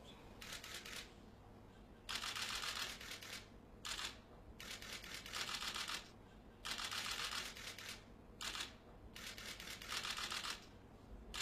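Press camera shutters clicking in rapid bursts, about six bursts of roughly a second each with short pauses between.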